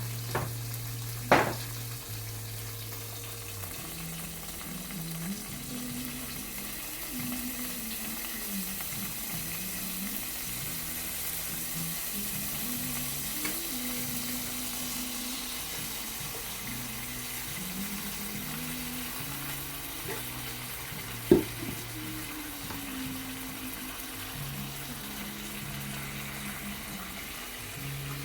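Food sizzling steadily in a frying pan, with two sharp knocks, one about a second in and another about two-thirds of the way through, and faint music underneath.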